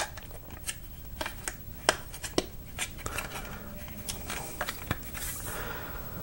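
Hard plastic toy parts clicking and knocking as the skids of a 1987 G.I. Joe Battle Force 2000 vehicle are rotated up and pushed in under a ridge of the hull to lock. There is a string of separate sharp clicks, with plastic rubbing and scraping in the second half.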